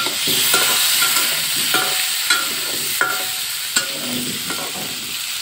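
Small whole potatoes sizzling in hot oil in an iron wok, turned with a spatula that scrapes and knocks against the pan in a run of sharp clicks, a little more than one a second.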